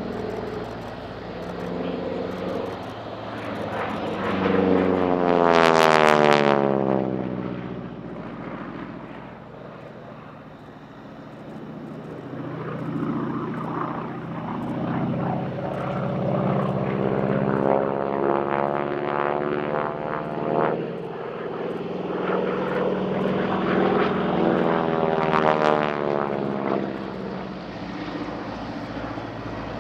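North American SNJ-3 Texan's Pratt & Whitney R-1340 Wasp nine-cylinder radial engine and propeller during aerobatics. It swells to a loud pass about six seconds in, fades, then builds again through a second loud pass near twenty-five seconds.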